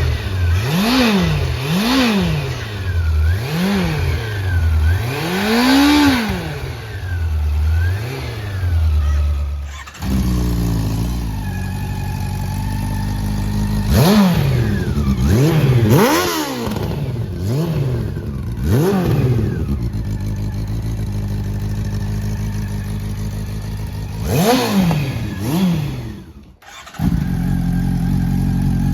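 Honda CB400 VTEC inline-four motorcycle engine revved in a series of quick throttle blips, each rising and falling in pitch, with idling between. The sound changes abruptly about ten seconds in and again near the end, as if cut between takes.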